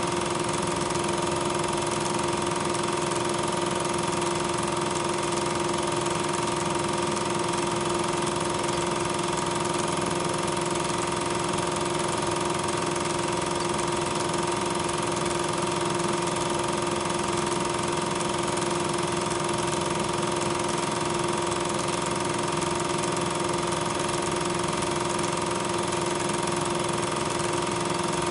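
Loud steady hum and hiss with two constant tones, unchanging throughout. It is an audio-track fault on a transfer of silent 8mm film, not the sound of the trains shown.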